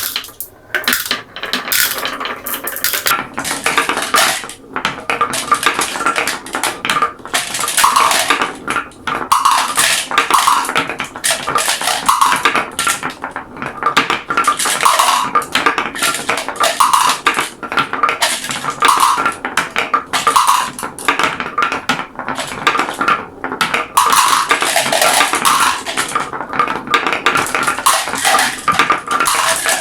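Many marbles rolling and clattering down a marble run track: a dense, unbroken stream of small clicks and rattles, with short ringing notes recurring about once a second.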